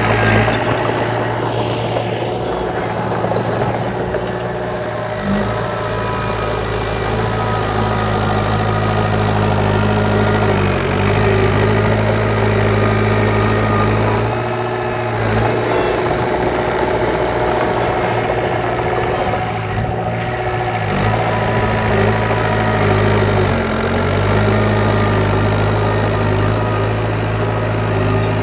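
Diesel engine of heavy earthmoving machinery running steadily, its note dipping briefly every few seconds.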